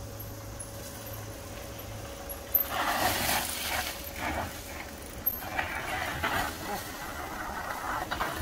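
Mountain bike riding past over a dry, leaf-covered dirt trail, its tyres crunching through leaves and dirt. A sharp knock about two and a half seconds in is followed by several seconds of rough, uneven bursts of rolling noise.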